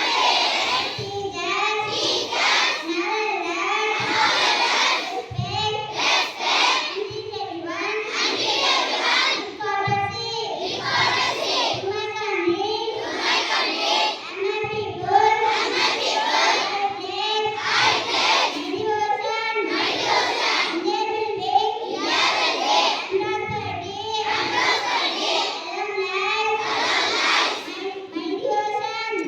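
A large group of schoolchildren singing together in unison, holding notes in a steady rhythm.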